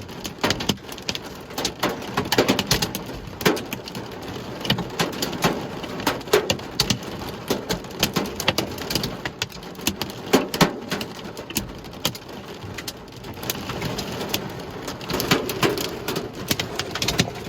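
Heavy storm rain pelting down, with a dense, irregular patter of sharp hits on hard surfaces.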